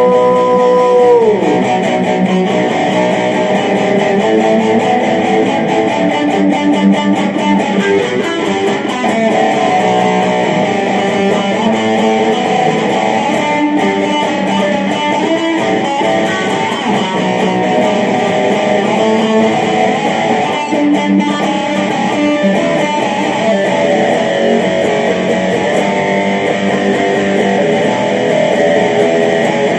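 A rock song's instrumental break led by electric guitar, played in a steady, dense band texture. A held sung note falls away about a second in.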